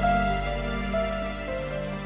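Slow, gentle background music: sustained melody notes changing about once a second over a held low bass.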